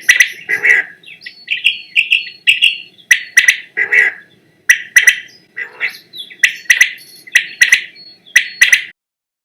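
Quail calling over and over: a quick series of short, sharp chirping calls, some in pairs, that stops about nine seconds in.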